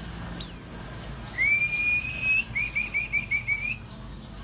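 Pleci (white-eye) song: one sharp high chip that falls in pitch, then a long, slightly rising whistled note, then a quick run of about seven short whistled notes.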